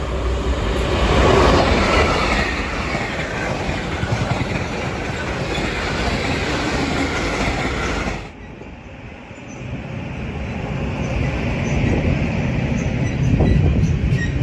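A passing train running on the rails, a loud steady rushing rumble. About eight seconds in it cuts off abruptly to a second, quieter passing train that grows louder toward the end.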